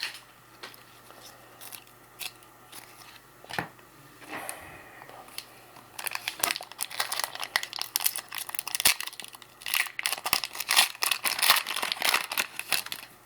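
A trading-card pack wrapper being torn open and crinkled, with the cards handled. The crackling is sparse at first and becomes dense and continuous from about halfway in.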